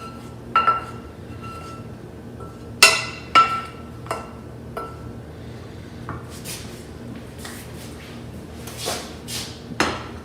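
A cooking utensil knocking and scraping against cookware while the last bits of a spaghetti-and-egg mixture are scraped out: a few ringing clinks about half a second and three seconds in, then softer scraping strokes.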